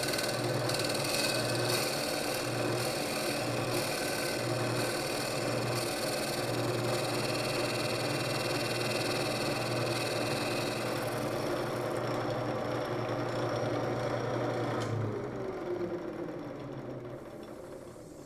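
Shop-built wood lathe running while its cutting tool shaves a spinning wooden banjo rim, with a low hum that pulses about once a second at first. The cutting noise fades after about twelve seconds, and near the end the lathe winds down, its pitch falling.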